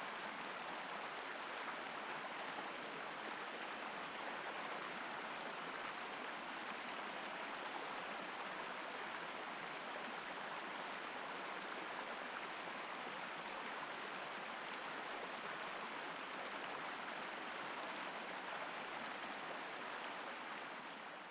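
Forest river flowing, a steady rush of water that starts to fade out near the end.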